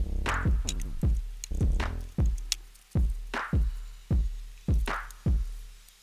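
Background electronic music with a drum-machine beat, about two beats a second.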